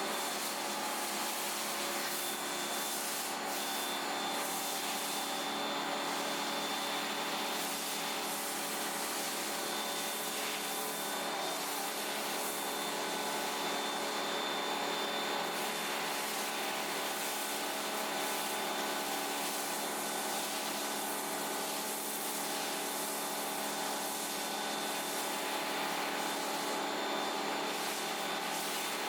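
Pressure washer running steadily, spraying through a foam cannon: an even hiss of spray over the steady hum of the motor and pump.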